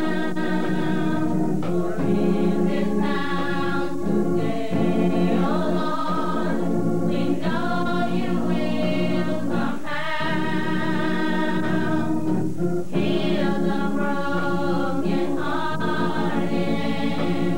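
A small group of young women singing a gospel song in harmony: long held chords in phrases a few seconds long, with short breaks between them.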